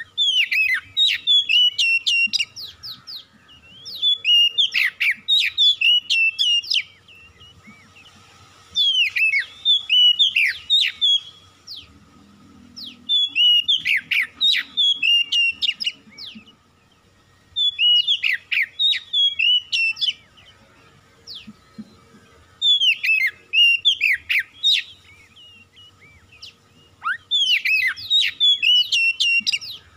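Oriental magpie-robin (kacer) singing. It gives about seven loud phrases of rapid whistled notes sliding up and down, each two to three seconds long, with short pauses between.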